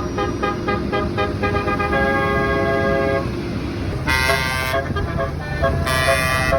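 Bus telolet 'basuri' multi-tone horn with roof-mounted trumpets playing a tune: a quick run of short notes, then a held chord, then two loud blasts about two seconds apart.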